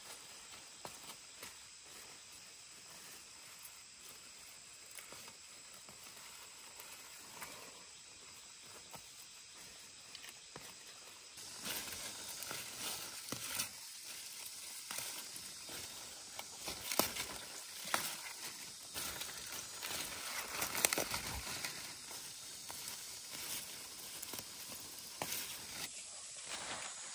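Faint steady hiss, then from about eleven seconds in, louder rustling with many scattered sharp clicks and knocks.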